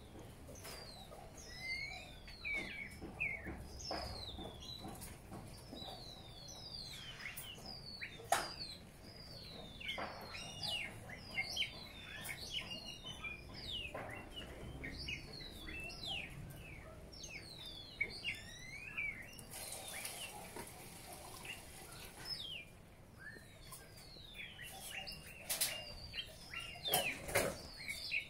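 Small birds chirping over and over, many short downward-gliding chirps, with a few sharp clicks among them.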